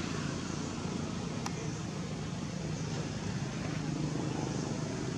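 Steady outdoor background noise, a low hum under an even hiss, with one faint click about one and a half seconds in.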